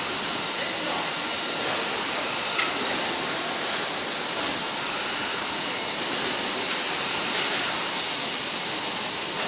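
Steady mechanical din of automatic feed-bagging machines and conveyors running in a factory hall, with a few faint clicks and knocks, the loudest about two and a half seconds in.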